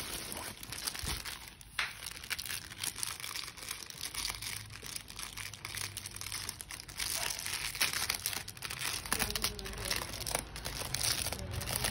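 Clear plastic wrap crinkling and crackling as hands pull at it and handle it, with many small irregular crackles throughout.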